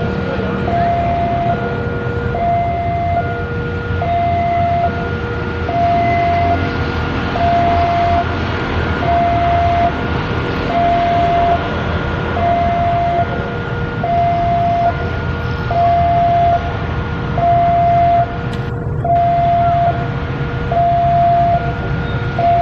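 Railway level-crossing warning alarm sounding: an electronic two-tone signal alternating a higher and a lower tone, each about half a second long, repeating steadily over a continuous rumble.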